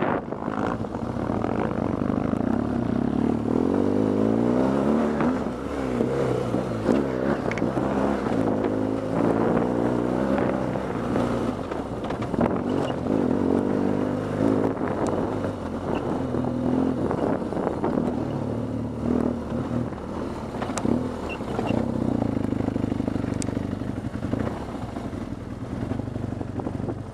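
BMW R 1200 GS Adventure's flat-twin boxer engine under way on a gravel track, its revs repeatedly rising and falling as the rider works the throttle, with loose stones clattering under the tyres.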